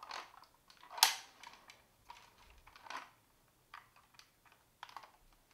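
Scattered plastic clicks and clacks from a vintage 1978 Kenner X-Wing toy as its R2-D2 wing switch is pressed and the wings are worked open, the sharpest click about a second in.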